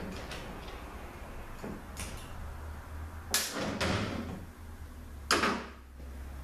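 Metal clunks of a 48RE transmission valve body and hand tools being handled and set down on a steel workbench: a few light clicks, then two sharp knocks and one loud knock near the end, over a low steady hum.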